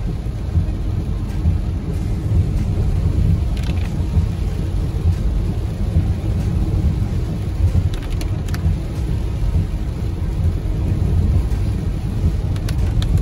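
Steady low rumble of a moving vehicle heard from inside the cab, mostly road and engine noise, with a few faint ticks.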